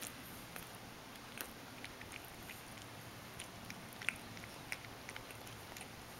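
Cat chewing and licking at a Twinkie sponge cake held in a hand: faint, irregular small mouth clicks and smacks, the sharpest about four seconds in.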